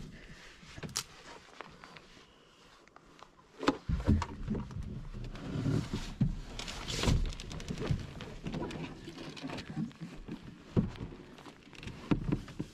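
Canoe being tipped down off the shoulders and set on dry brush: the hull knocks and thuds, with crackling and rustling of dry leaves and twigs and footsteps underfoot. The loudest knocks come about four seconds in, with more crackling and a few lighter knocks near the end.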